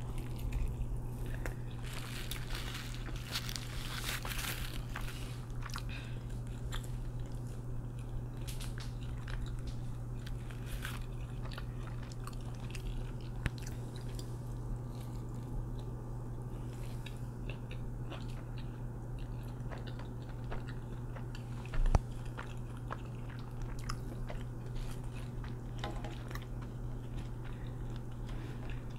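Close-miked biting and chewing of a spicy fried chicken sandwich: crunchy chewing with many small wet clicks, densest in the first few seconds, over a steady low hum. One sharp knock about 22 seconds in.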